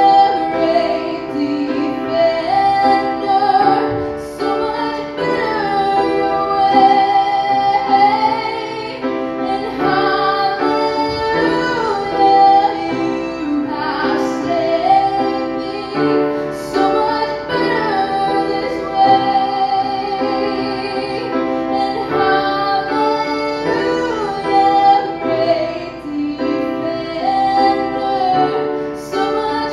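A young woman singing a melody with long held notes and vibrato, accompanying herself on a grand piano.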